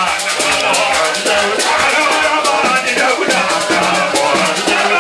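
Amplified live gospel band music: voices singing over keyboard bass and drums, with a shaker keeping a steady rhythm.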